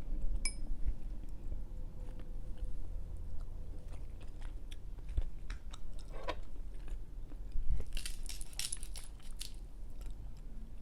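A person chewing seafood-boil food close to the microphone, with scattered small clicks and crunches that bunch together near the end.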